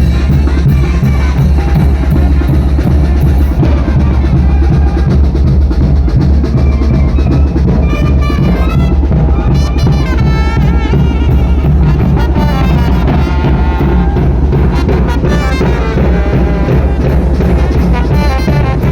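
A Mexican banda brass band playing: drums, including bass drum and snare, under horn melody lines over a strong, steady bass.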